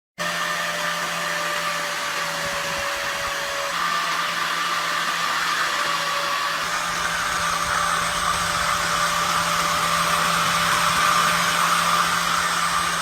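A small electric motor-driven blower or tool running steadily with an airy whir and a low hum.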